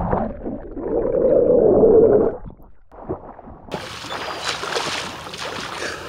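Churning air bubbles heard underwater, muffled and dull, as a body plunges into the sea. About four seconds in, the sound opens up into the splashing of a person swimming at the surface.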